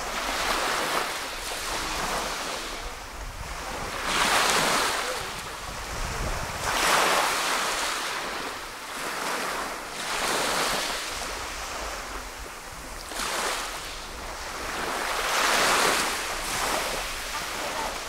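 Small waves breaking and washing up a pebble beach, a hiss that swells and ebbs about every three seconds. Low wind rumble on the microphone runs underneath.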